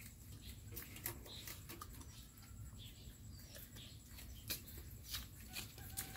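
Rabbits munching fresh leafy greens: faint, irregular crisp clicks and crunches of chewing and of leaves being pulled, over a low steady background noise.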